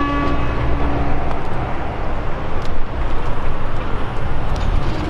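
Highway traffic noise with a steady low rumble. A vehicle horn held on one note cuts off about a second in.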